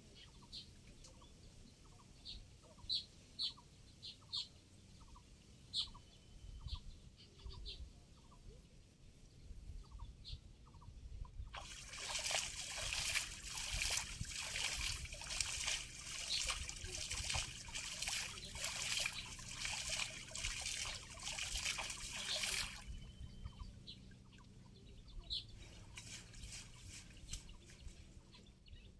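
Water splashing and trickling as a cast net is hauled in through shallow water, loud for about eleven seconds in the middle and briefly again near the end. Short, high bird chirps are heard before it.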